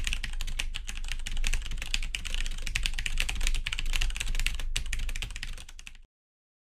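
Computer keyboard typing sound effect: rapid, continuous key clicks over a low hum, cutting off suddenly about six seconds in.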